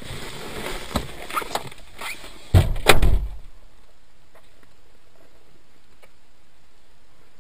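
Rustling and a few sharp clicks, then two heavy thumps about a third of a second apart a little under three seconds in, the loudest sounds here. After that only a steady faint hiss.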